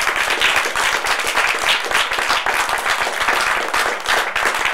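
Small audience applauding: dense, steady clapping of many hands.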